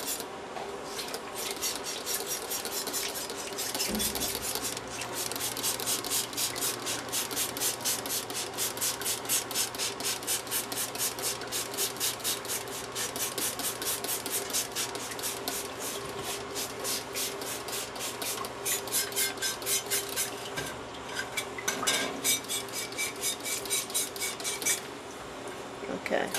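Hand trigger spray bottle squirting in quick repeated pumps, about three or four a second, each a short hiss of spray, spraying down a foam lawnmower air filter and its housing. A faint steady hum runs underneath.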